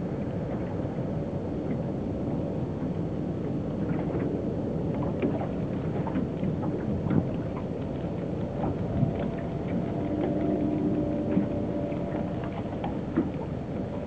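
Steady outdoor rumble of wind and open water on the bay, with a faint steady engine drone from a distant motor and scattered small clicks and splashes.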